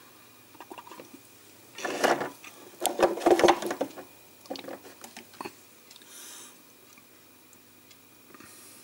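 Small plastic paint pots clattering and knocking together as they are rummaged through, in two busy bursts of clicks about two and three seconds in, followed by a few lighter knocks.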